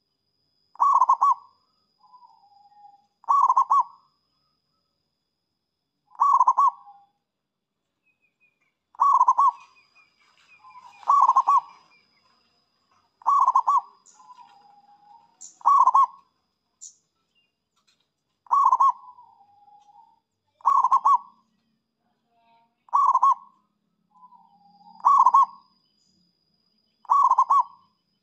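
Zebra dove (perkutut) cooing: about a dozen loud, short coos, each made of rapid pulses, about two seconds apart, with softer lower notes in some of the gaps.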